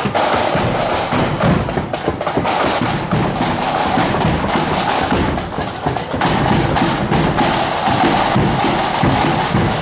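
Marching flute band playing: flutes carrying a tune over a steady beat of drums.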